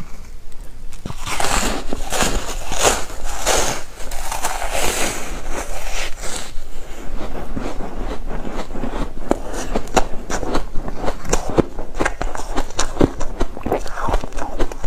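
Crunching bites into frozen foam ice for the first few seconds, then chewing with many short crackles as the ice breaks up in the mouth.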